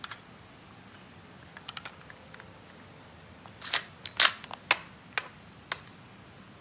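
Handling clicks from a full-metal spring airsoft pistol (C.1911A+) being readied to fire: a few faint ticks, then a run of about six sharp metal clacks a little under four seconds in as the slide is worked to cock it.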